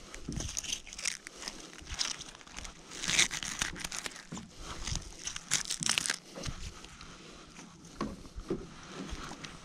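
Wet nylon fishing net being pulled in over the metal bow of a boat. The mesh makes an irregular crackling rustle, with short scraping clicks that come in bursts and are loudest about three seconds in and again around six seconds in.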